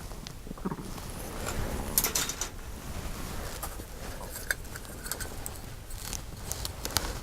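Styrene plastic model-kit sprues being handled: light clicks, clacks and rustling, with sharper clacks about two seconds in, mid-way and near the end.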